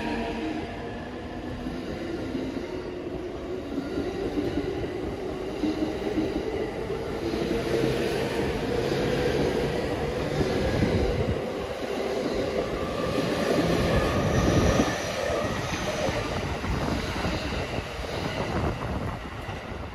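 JR East E231-series electric multiple unit pulling away and gathering speed. Its traction motor whine rises slowly in pitch over a steady rumble of wheels on rail. A few sharp knocks from the wheels crossing rail joints come about halfway through and again near 15 seconds.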